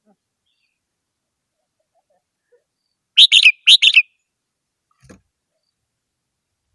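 Red-whiskered bulbul singing: two short, loud, warbling phrases in quick succession about three seconds in. A faint tap follows a second later.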